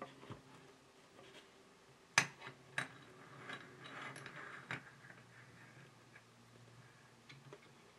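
Handling noise of a dynamic microphone capsule being fitted into a small bench vise: a sharp click about two seconds in, the loudest, another just after, light rustling, and a last knock near the five-second mark.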